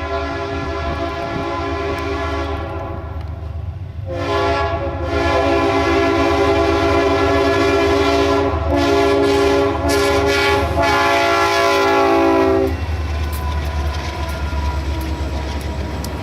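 Freight locomotive's multi-note air horn sounding a chord: one blast that fades about three seconds in, then after a short break a long blast with a few brief gaps that cuts off about 13 seconds in. The passing train's low rumble and wheel clicks on the rail joints carry on underneath and after.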